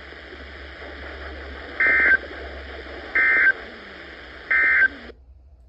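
Emergency Alert System end-of-message data bursts: three short, identical bursts of warbling two-tone digital data, about a second apart, marking the close of a weather alert broadcast. Steady radio hiss runs underneath and cuts off abruptly near the end.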